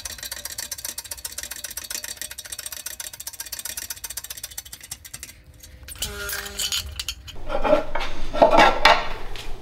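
Aluminium diamond-plate sheet clinking and knocking against the steel jaws of a shop press brake as it is worked and bent, with brief metallic ringing, starting about six seconds in. Before that comes a steady rasping noise, then a short lull.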